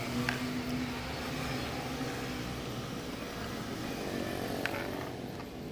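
Steady low hum of a running engine, with a couple of faint clicks.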